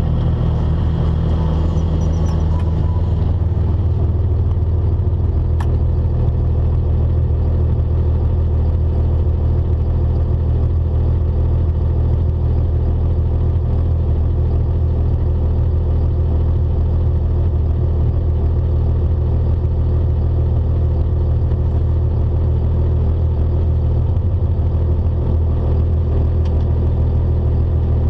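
A 2000 Dodge Ram 2500's 5.9 Cummins 24-valve inline-six turbo diesel running steadily at idle, heard from inside the cab, with a constant low rumble and no revving.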